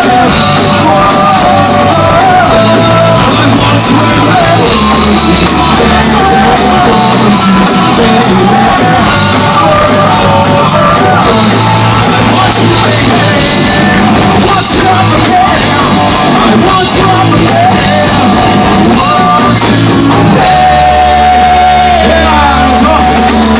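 Live rock band playing loudly, with a singer's voice over the band. About three-quarters of the way through, the singing stops and the band holds a sustained chord.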